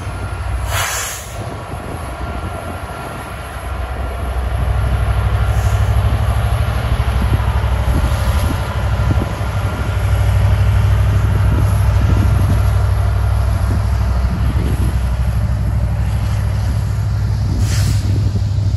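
Kansas City Southern freight train rolling past with a steady low rumble of wheels on rail that swells about four seconds in, with faint scattered knocks as the cars go by.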